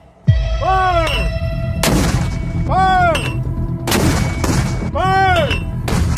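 Vehicle-mounted mortar firing, a sharp blast about every two seconds. Between the blasts a ringing tone rises and falls, over and over.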